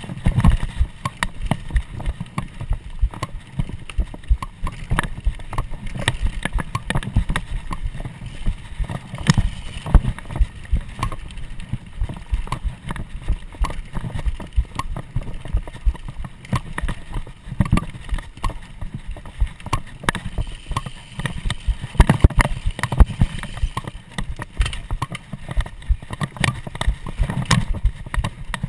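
Mountain bike ridden fast over a bumpy dirt trail: a constant, irregular clatter of knocks and rattles from the bike over the trail surface, with rolling tyre noise underneath.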